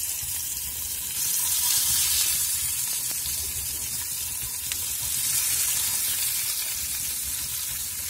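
Masala-rubbed Indian mackerel frying in hot oil in a pan: a steady sizzle that swells as more fish are laid in.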